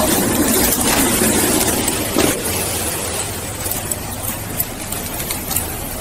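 Patrol car running: a steady engine hum under a wash of road or cabin noise, with a few faint clicks, easing off slightly in level.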